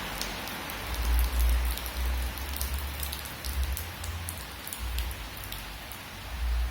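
Steady rain: an even hiss dotted with separate drop ticks, over a low rumble that swells and fades several times.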